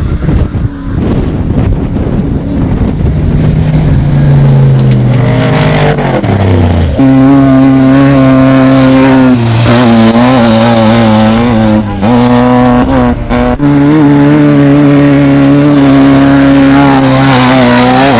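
Off-road desert race vehicle's engine running hard: a few seconds of rough engine and dirt noise, then a steady high-revving drone from about four seconds in. The drone drops in pitch once around six seconds, then holds, with three brief dips in revs later on.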